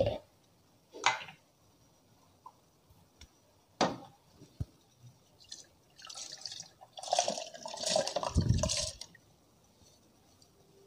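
Soaked rice and its water being poured from a glass bowl into a plastic blender jar, a wet splashing pour lasting about three seconds in the second half. Earlier, two short knocks as the blender jar's lid is handled.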